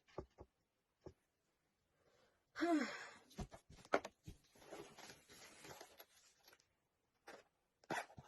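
Phone-accessory packaging being handled: a few sharp knocks and a stretch of rustling, with a short cry falling in pitch about two and a half seconds in.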